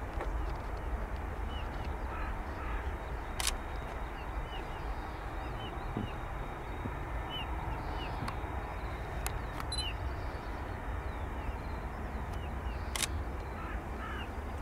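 Distant jet engines of a taxiing Airbus A310 running at idle: a steady low rumble. A bird calls over and over through it, and there are two sharp clicks, about three and a half seconds in and near the end.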